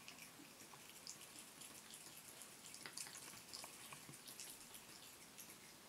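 Faint, irregular small ticks of water dripping and trickling from a barely-open bathroom faucet into the sink, mixed with a cat lapping at the stream. The ticks come thickest about halfway through and stop just before the end.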